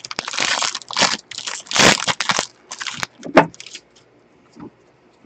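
Foil wrapper of a baseball card pack crinkling loudly as it is torn open and peeled off the cards, then a short knock about three and a half seconds in as the card stack is handled.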